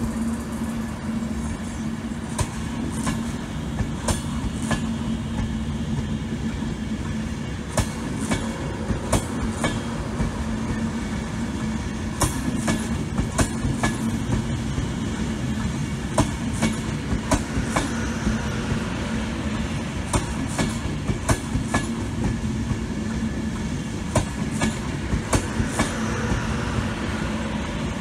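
Avanti West Coast passenger train running past the platform: a steady low hum and rumble of the train, with repeated sharp clacks of the wheels over rail joints.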